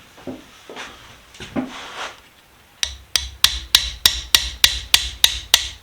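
A few soft handling knocks and rubs, then about halfway in a steady run of sharp hammer taps, about three a second, each with a dull thud beneath it.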